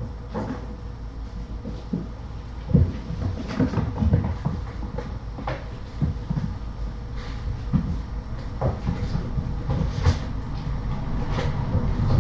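Irregular soft knocks and clicks over a steady low hum.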